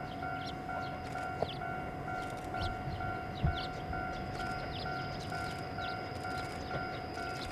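An electronic railway warning bell rings in an even rhythm, about two and a half strokes a second, as a JR Hokkaido 711 series electric train approaches slowly. A single low thump comes about three and a half seconds in.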